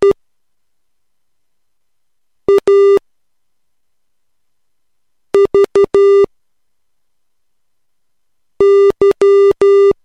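Morse code practice tone, a low buzzy electronic beep keyed in dots and dashes, sent slowly as three separate characters with long gaps between them.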